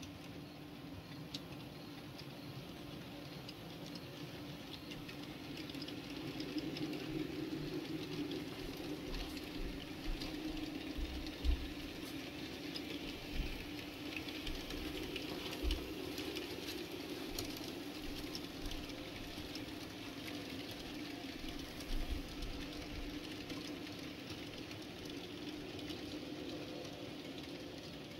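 N-scale model trains running on track: a steady motor hum with light wheel clatter as the passenger train passes, louder from about six seconds in, with a few sharp clicks as the wheels cross rail joints and turnouts.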